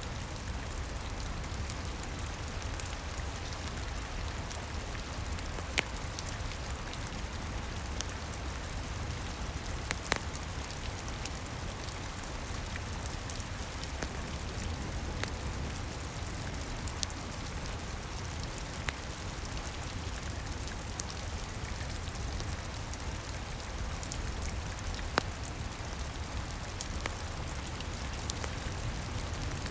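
Steady rain, indoors-ambience mix, with a low rumble underneath and a crackling wood fire giving scattered sharp pops, three of them louder than the rest.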